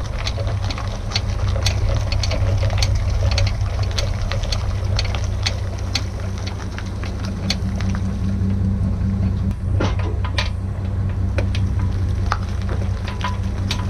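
Bass boat's outboard motor running steadily under way, a constant low drone, with scattered sharp clicks and knocks on top. The motor has been freshly repaired and cleaned.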